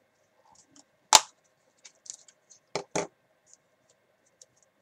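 Small plastic-wrapped collectible box being handled and pried open: one loud sharp snap about a second in, then two clicks near the three-second mark, with faint ticks of plastic between.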